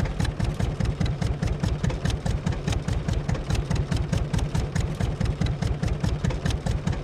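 Two-cylinder John Deere tractor engine idling, with a steady, even run of low, rapid exhaust pops.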